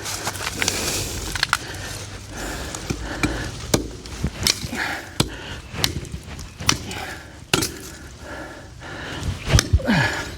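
Slasher blade chopping through vines and brush: a run of irregular sharp strikes, roughly one a second, with a short grunt near the end.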